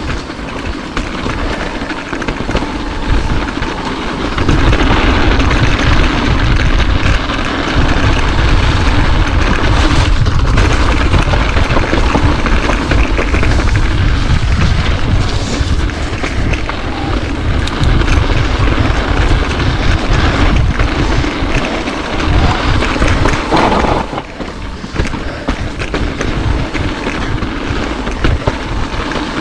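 Mountain bike riding down a dirt trail: wind buffeting the helmet or chest camera's microphone over tyre noise and the rattle of the bike. The noise builds a few seconds in, stays loud, then eases briefly near the end.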